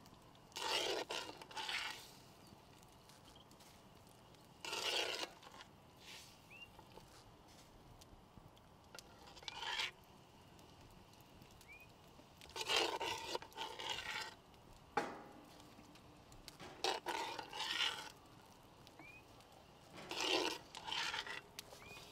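Irregular bursts of scraping and rubbing, six clusters each lasting about a second, with quiet stretches between them.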